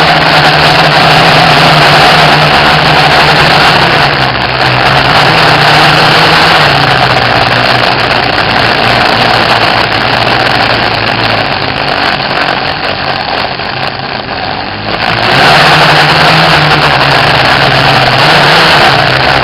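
FPV quadcopter's electric motors and propellers buzzing under throttle, the pitch shifting up and down with throttle changes. The sound eases off about twelve seconds in and comes sharply back up about three seconds later.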